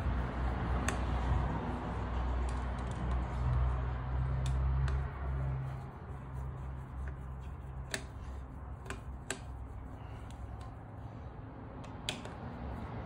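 Scattered sharp metal clicks and clinks of a hand tool on the clutch spring bolts of a Yamaha YZ250's pressure plate as they are run down in a crisscross pattern, about eight in all. Under them a low hum is louder for the first six seconds, then eases.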